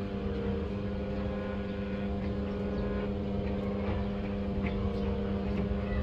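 A steady engine-like hum at one constant pitch, over a low rumble.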